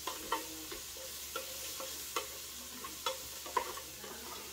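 Plastic spatula scraping and stirring in the Ninja Speedi's cooking pot: short, irregular scrapes and taps, about eight in a few seconds, over a steady hiss.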